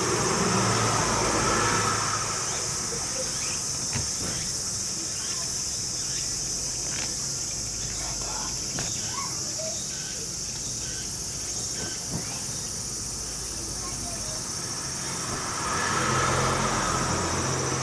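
Steady high-pitched insect chorus, with scattered light clicks and taps. A low hum swells briefly near the start and again near the end.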